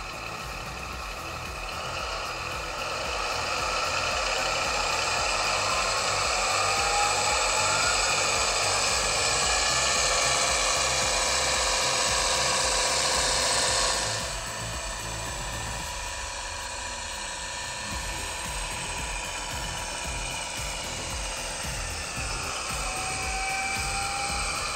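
ESU sound-equipped H0 model of a BR 216 diesel locomotive playing its diesel engine sound through the model's small speaker, with the heavy-load function switched on, as the model runs along the track. The engine sound is louder for the first half and drops suddenly about halfway through.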